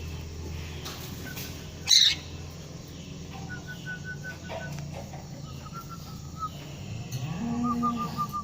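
Lory (nuri parrot) calling: one loud harsh squawk about two seconds in, with several runs of quick, evenly spaced high chirping notes and a low drawn-out call near the end.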